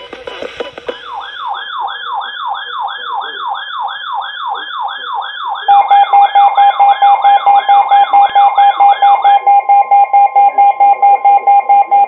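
Electronic emergency alert siren sweeping down in pitch about three times a second. About halfway through, a loud steady alert tone joins it. Near the end the sweeps stop and a steadier, slightly higher tone pulses rapidly.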